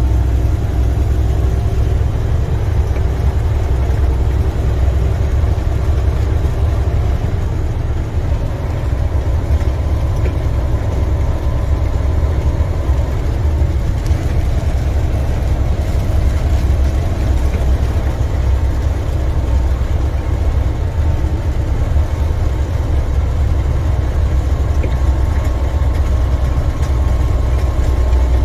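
Steady low drone of an International semi tractor's MaxxForce 13 inline-six diesel cruising at highway speed, heard inside the cab with road noise.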